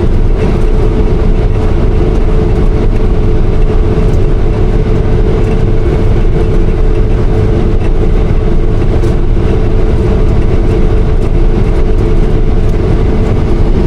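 Combine harvester running steadily while cutting wheat: a constant low machine drone with a steady whine over it.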